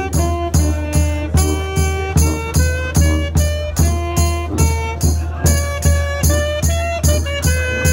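Saxophone playing a melody live over a backing track with a steady drum beat and bass.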